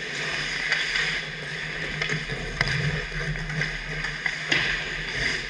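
Ice hockey play: skate blades scraping and carving the ice, with a few sharp clacks of sticks and puck, over a steady low hum.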